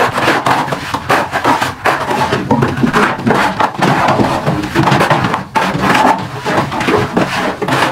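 Two plasterers' trowels flinging wet cement mortar onto a brick wall and scraping it across: a quick, uneven run of slaps and scrapes, several a second.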